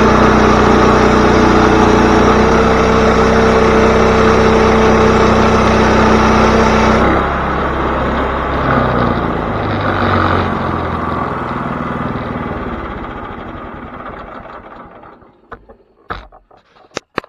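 Portable sawmill's engine running steadily, then dropping to a lower, uneven running about seven seconds in and fading away. A few sharp clicks follow near the end.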